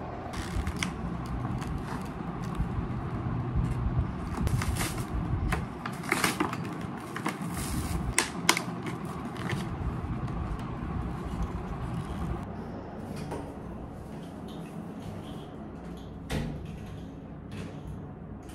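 Handling noises: paper wrapping rustling, then the plastic and metal parts of a towel rail clicking and knocking as they are put together and pressed onto a door. A string of separate sharp clicks and taps, busiest in the middle.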